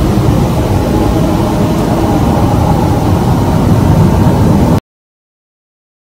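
A loud, steady low rumbling drone in the night sky, recorded on a phone. It cuts off abruptly just before five seconds in, where the phone's recording stops.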